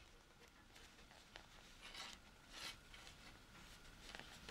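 Faint ticking and rubbing of circular knitting needles and yarn as stitches are knitted, a few soft ticks at irregular spacing.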